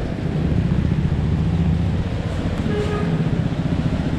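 Automatic scooter's engine running steadily while riding, with wind and road rumble on the helmet camera's microphone. A brief faint tone sounds about three seconds in.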